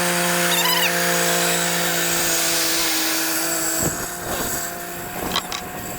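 A small gas engine of a handheld power tool runs at a steady high speed, then eases off about four seconds in. A few short clicks follow near the end.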